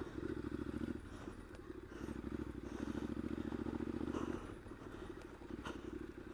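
2015 Triumph Scrambler's air-cooled parallel-twin engine running under way off-road, heard from the rider's helmet. The throttle opens and eases off: the engine is louder for about the first second and again from two to four seconds in, and settles lower near the end.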